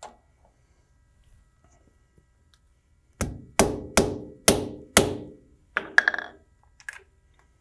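A hammer tapping a workpiece down in a milling-machine vise to seat it: five sharp, ringing strikes about half a second apart, then a few lighter knocks.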